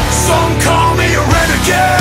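Rock music with a singing voice over a steady band.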